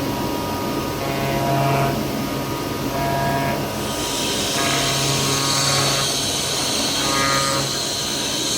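CNC knife cutting machine running: its gantry drive motors hum and whine in stop-start moves lasting a second or two each. A steady high hiss joins about four seconds in.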